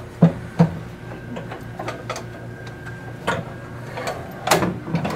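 Irregular metal knocks and clicks as a brake power booster with its master cylinder is handled and pushed into place against a car's sheet-metal firewall, with the attached brake lines and hoses shifting. A few sharper knocks stand out: two close together near the start, others about three and four and a half seconds in, over a steady low hum.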